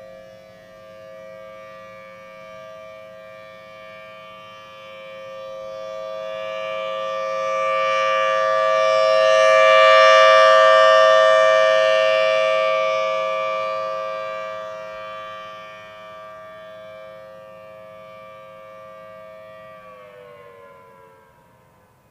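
Federal Signal Thunderbolt 1000T outdoor warning siren sounding a steady tone for a test. The sound swells to a loud peak about halfway through and fades again as the rotating siren head sweeps past. Near the end the pitch begins to fall as the siren starts to wind down.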